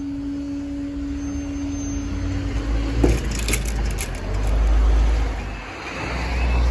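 A passenger train passing over the level crossing: a heavy low rumble swells about five seconds in, dips, and rises again, with a sharp click and rattling about three seconds in. A steady tone sounds for the first three seconds, and short repeating chirps start near the end.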